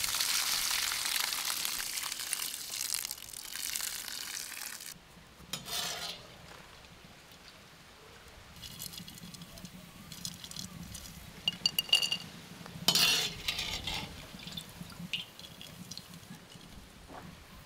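Cooking at the kitchen: a loud hiss for about five seconds, like liquid pouring or food sizzling, then quieter clinks and knocks of utensils against dishes and pans, with a sharp clink about twelve seconds in.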